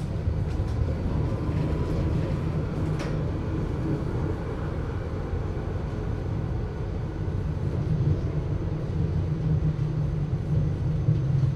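Adtranz GT6M low-floor tram standing at a stop, its on-board equipment giving a steady low hum, heard muffled. A light click sounds about three seconds in.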